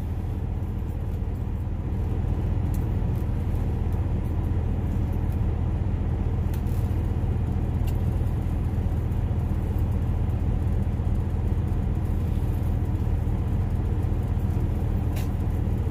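Steady low rumble of an idling truck engine heard inside the cab, with a few faint clicks from food being handled.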